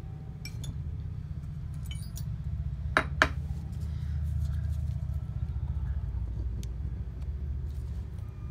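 Metal hand tools clinking on a wooden workbench as a turbocharger is taken apart: a few sharp clicks, two loud ones close together about three seconds in. Under them runs a steady low rumble that swells in the middle.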